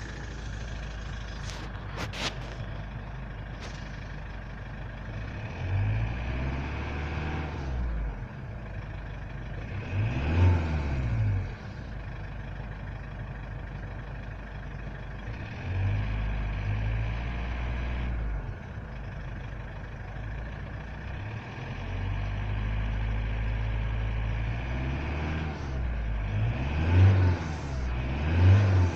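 Toyota Avensis T22 D-4D four-cylinder turbodiesel running, its revs rising and falling several times, with a hiss from a leaking turbocharger intake hose that gets stronger as the engine is accelerated.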